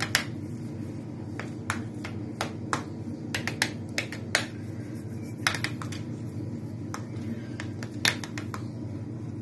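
Metal spoon clicking and scraping against a stainless-steel ring mould while spreading mashed potato in it: irregular sharp taps, a few a second, over a steady low hum.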